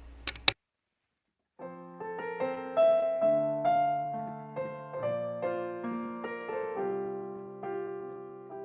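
A couple of sharp clicks, then a second of silence, then an electronic keyboard in piano voice begins a slow intro of chords with melody notes on top, each note dying away.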